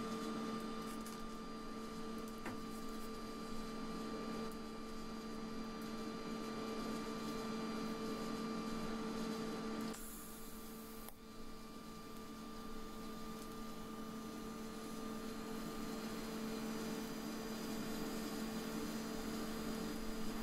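Steady electrical hum of a TIG welding set while a steel handle is welded, with a brief high hiss about ten seconds in.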